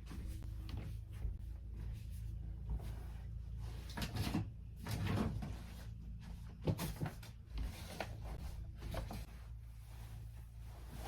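A scattering of light knocks and bumps of household things being handled and moved about, the loudest a little past the middle, over a steady low hum.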